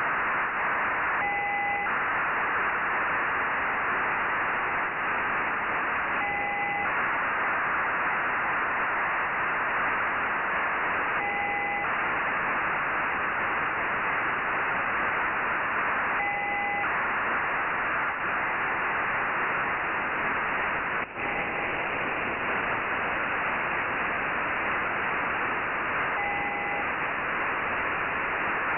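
Radio receiver hiss from an FM-demodulated satellite downlink, with a short data burst about every five seconds: the Nayif-1 (EO-88) amateur satellite's telemetry being received and decoded. A single click sounds about two-thirds of the way through.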